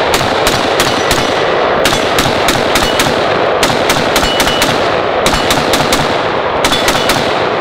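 HK MR556A1, a 5.56 piston-driven semi-automatic rifle, fired in rapid strings of shots with short pauses between the strings as the shooter switches targets.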